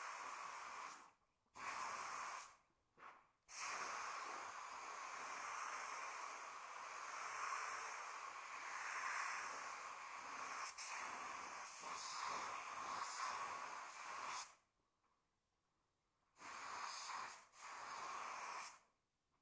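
Suction-feed spray gun hissing as compressed air atomises paint. The hiss starts and stops sharply as the trigger is pulled and released: a few short bursts, one long pass of about eleven seconds, then two short bursts after a pause.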